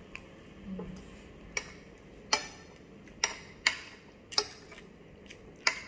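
Metal spoon and fork clinking against a ceramic plate while eating, about six sharp, irregularly spaced clinks.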